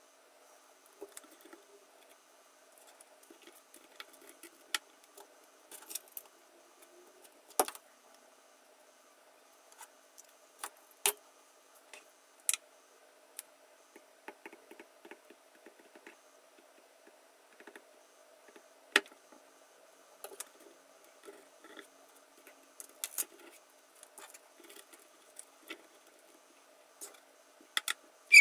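Scattered sharp clicks and light taps at irregular intervals, the loudest about a third of the way in and again about two-thirds in, with softer crackling between them, over a faint steady hum.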